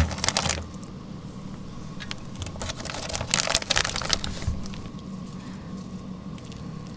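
Fresh kalguksu noodles dropped by hand into simmering shabu-shabu broth in an electric hot pot and stirred with wooden chopsticks: a crackly patter of handling and splashing, densest about three to four seconds in, over a steady low hum.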